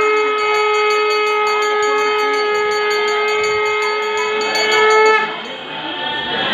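Conch shell (shankha) blown in one long steady note lasting about five seconds, then cutting off, leaving the murmur of the gathered people.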